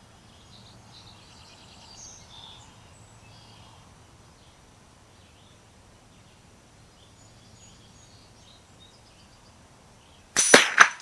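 A shot from a Henry lever-action .22 LR rifle firing Remington Thunderbolt round-nose ammunition near the end, followed about half a second later by a second sharp crack. Before it, a long quiet stretch with faint bird chirps.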